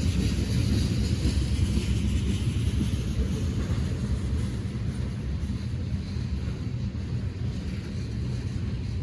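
A train rumbling steadily, mostly a deep rumble, with a fainter hiss above it that slowly fades.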